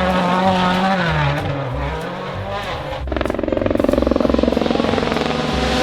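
Race car engine running at high revs: a steady note that sags and dips about a second in, then a harsher, buzzier run from about three seconds in.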